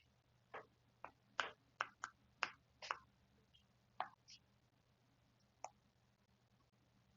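A pen tapping and clicking against the writing surface as words are handwritten: about ten short, sharp clicks at uneven intervals over the first five or six seconds, over a faint steady hum.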